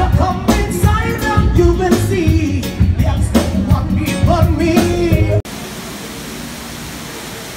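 A live band playing amplified music on an open-air stage, with a singer over strong bass and drums. It cuts off suddenly about five seconds in and gives way to a quieter, steady, even hiss.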